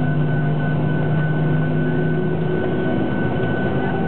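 Boeing 737-800 cabin noise while taxiing: the CFM56-7B jet engines run at low thrust, a steady hum with a constant high whine, heard from inside the passenger cabin. About two-thirds of the way in, a low hum drops away and the lower tones shift.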